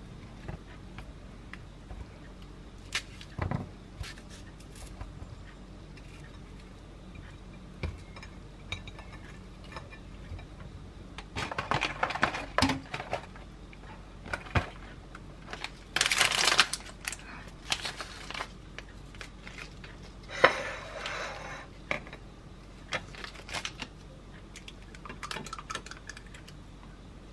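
Kitchen handling sounds as a peeled hard peach is sliced and plated. There are scattered knife-on-board clicks and clinks of a plate and metal utensils, broken by three short bursts of rustling and clatter about halfway through and later on.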